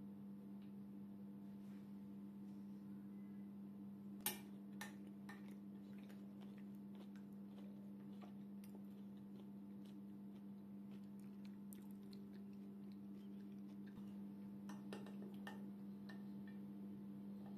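Metal spoon scooping food in a ceramic plate, with light clicks of the spoon against the plate and one sharper clink about four seconds in, over a steady low hum.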